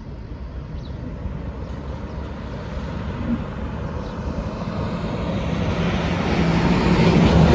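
A heavy goods truck approaching along the highway, its engine and tyre noise growing steadily louder and peaking as it draws level near the end.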